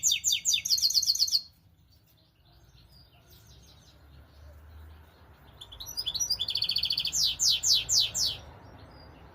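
Goldfinch mule (goldfinch × canary hybrid) singing: two bursts of song made of fast runs of short, sharply repeated sweeping notes. The first ends about a second and a half in, and the second starts a little past the middle and lasts nearly three seconds.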